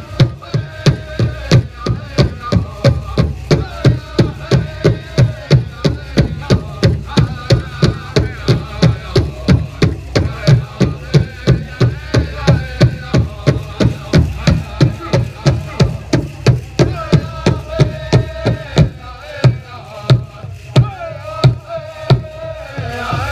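A powwow drum struck in a fast, steady beat of about three strokes a second, with the voices of a group of singers over it. Near the end the steady beat breaks off into a few single, spaced hits.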